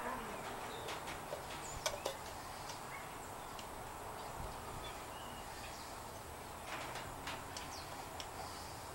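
Quiet scattered clicks and taps of small metal gauge parts being handled at a workbench, the sharpest about two seconds in and another group near the end, with faint bird chirps in the background.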